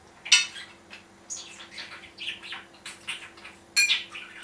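A metal fork clinks against a ceramic plate twice, once just after the start and once near the end. In between, a bird chirps repeatedly in short high calls.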